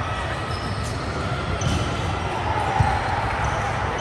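Indoor volleyball game in a sports hall: a steady hall rumble with brief high shoe squeaks on the court floor, and one sharp ball strike about three seconds in.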